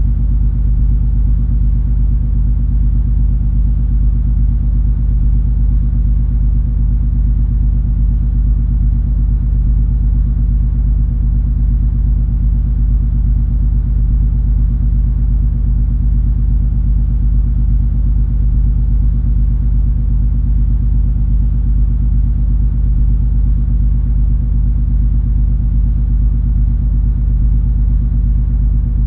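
Steady low drone of the cruise ferry MS Color Fantasy under way: the ship's engines and hull rumble with a few constant low hums and no changes.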